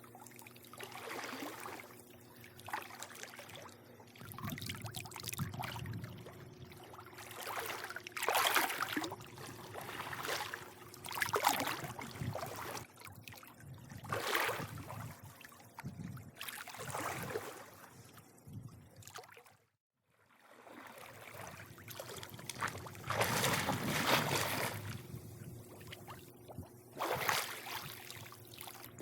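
Pool water lapping and sloshing against the edge in irregular washes every two to three seconds, over a steady low hum. The sound cuts out for a moment about two-thirds of the way through.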